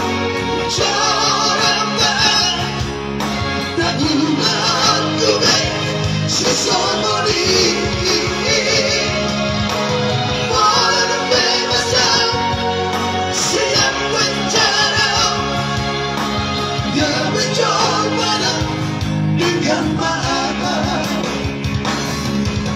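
Live group singing into microphones over amplified backing music, with the singers' sustained, wavering notes on top.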